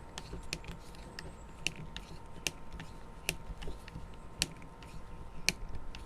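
Light, irregular clicks and ticks of a Phillips screwdriver turning a small screw down into a mini chainsaw's plastic housing and handling the parts.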